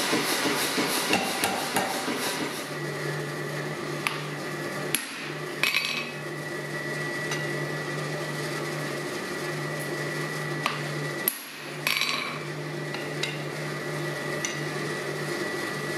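A power hammer strikes a red-hot steel bar in quick, even blows for the first couple of seconds. Then its motor hums steadily, with a few separate sharp metal clanks.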